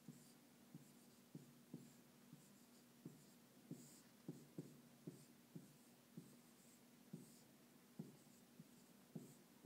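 Dry-erase marker writing on a whiteboard: faint, irregular short strokes and squeaks as letters are drawn, roughly one to two a second, over a faint steady hum.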